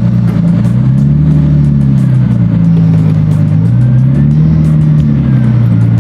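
Car engine running, its revs rising and falling gently and unevenly.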